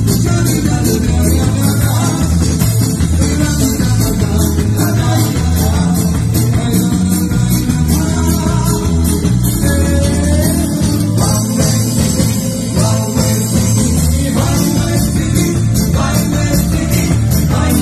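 Loud live Roma party music from a small band: a drum kit with cymbals keeping a steady fast beat over bass and electric guitar, with a male voice singing through the microphone.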